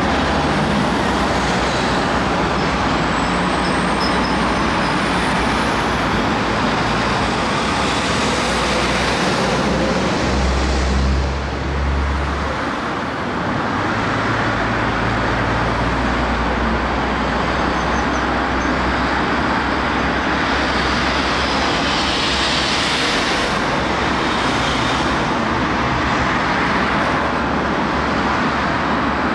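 Steady traffic noise mixed with heavy diesel engines running, with a louder low engine rumble about eleven seconds in.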